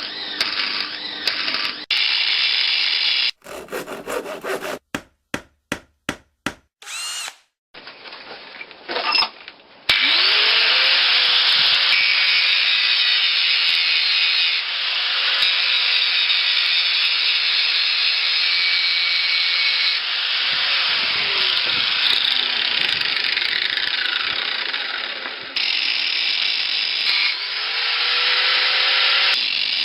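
An electric power tool at work, its motor spinning up to speed, running with a loud hiss and winding down again several times, in separate cut-together clips. A quick series of sharp clicks comes about five seconds in.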